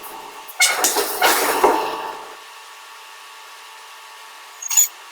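Forging hammer clanging on hot steel: several ringing metal strikes in quick succession in the first two seconds, then a steady machinery hum with one short, sharp burst near the end.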